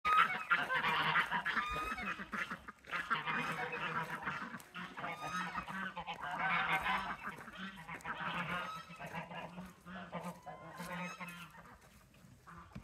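A flock of domestic geese honking in excited, overlapping bouts, the calls fading toward the end.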